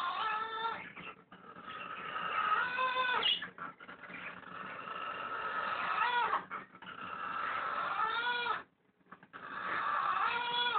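Blue and gold macaw snoring in its sleep: a raspy, noisy breath swells over about two seconds and ends in a short, wavering squeak, repeating about every two and a half seconds, five times.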